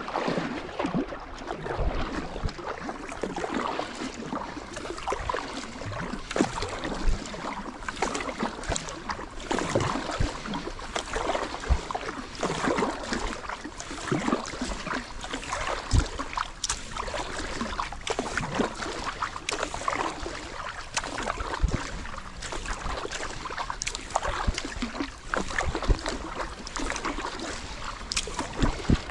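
Sea kayak being paddled at a steady pace: paddle blades dipping and splashing in irregular strokes, over water rushing along the hull.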